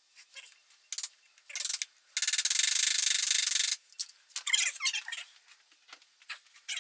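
Hand tools working on a Honda 300EX ATV's rear axle carrier: scattered metal clicks and squeaks, with a steady high hiss-like noise for about a second and a half midway.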